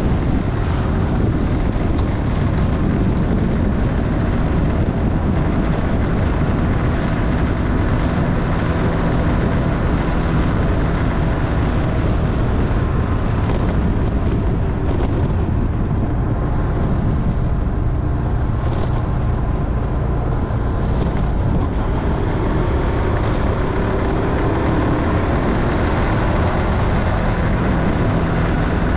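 Motorcycle engine running steadily while riding: a continuous low drone whose pitch shifts slightly as the throttle changes.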